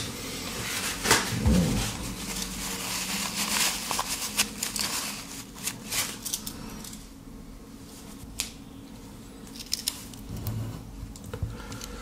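Handling noise from a metal hand tool: a run of light clicks, scrapes and rustles, busy for the first several seconds and then sparser, with a few more clicks near the end.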